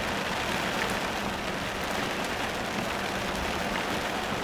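Heavy rain pelting a moving car and its tyres hissing through standing water, heard as a steady noise from inside the car.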